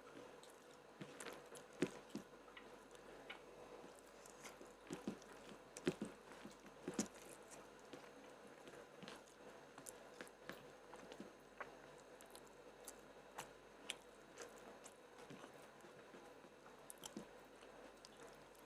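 A person chewing and biting food close to the microphone, with many short irregular mouth clicks; the strongest come about two, six and seven seconds in.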